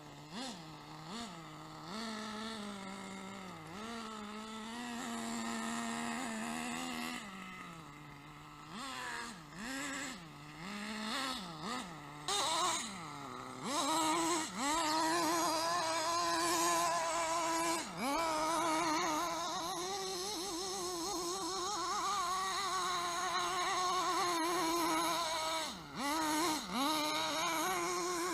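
Radio-controlled car's motor whining, its pitch rising and falling in short surges at first, then holding mostly steady and higher with a couple of brief dips.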